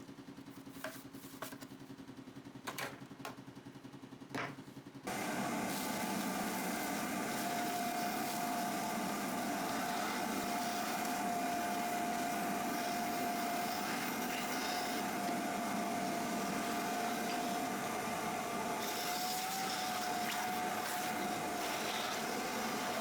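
A few light knocks, then about five seconds in a vacuum cleaner switches on and runs steadily with a high whine. It is clearing packed wood chips from a DEWALT DW735 planer's clogged chip chute.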